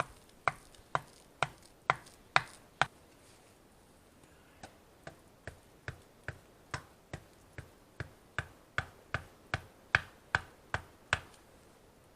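Steady chopping strokes of a blade striking wood, about two and a half a second: six strokes, a short pause, then a longer run of about seventeen more.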